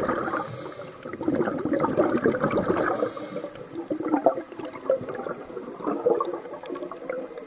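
Water bubbling and gurgling around a camera that is under water during a dive, an irregular churning sound.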